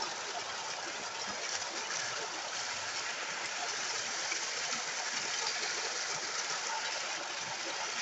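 Steady rush of a small rocky waterfall in a stream, an even hiss of falling water that holds at one level.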